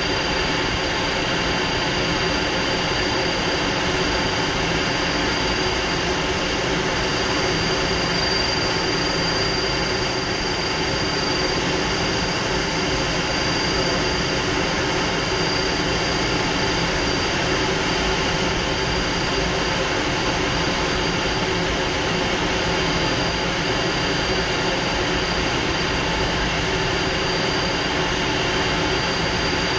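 Fouga Magister's twin Turbomeca Marboré turbojets heard from inside the cockpit in flight: a steady, unbroken engine and airflow noise with a thin high whine held at one pitch.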